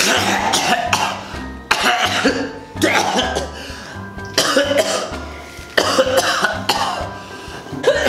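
A man coughing hard in repeated fits, about five of them, each starting suddenly, over background music.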